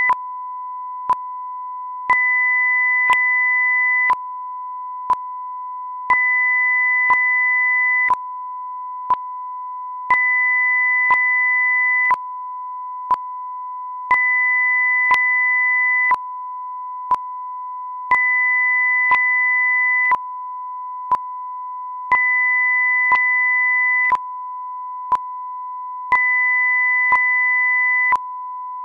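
Generated audio/video sync test signal: a steady sine test tone, with a second tone an octave higher that switches on for two seconds and off for two seconds, and a short sync click once a second.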